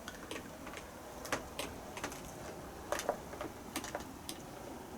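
Scattered light clicks and taps, irregular and about a dozen in all, as steamed fish is worked out of a plastic steamer basket onto a plate.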